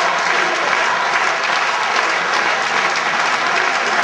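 A large crowd applauding steadily, a dense, continuous patter of many hands clapping.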